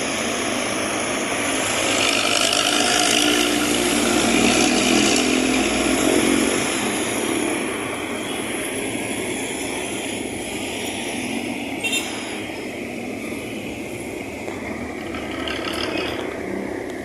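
Intercity bus with a loud 'ngorok' (growling) exhaust, running under acceleration. It swells to its loudest a few seconds in, with the pitch rising and falling, then fades. There is a brief sharp click about twelve seconds in.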